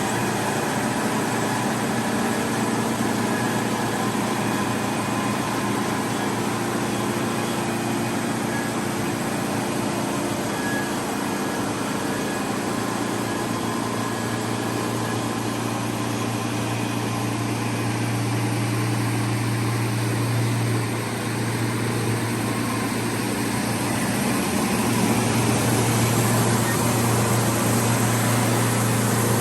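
Sawmill's 38 horsepower Kubota diesel engine running steadily. A deep note grows stronger about halfway through, and it gets a little louder near the end.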